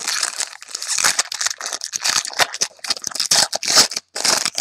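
Plastic wrapper of a pack of football trading cards being torn open and crinkled by hand, a rapid run of crackling and rustling.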